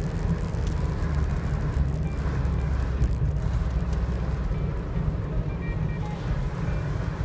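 Car driving at low speed, heard from inside the cabin: a steady low rumble of engine and tyre road noise.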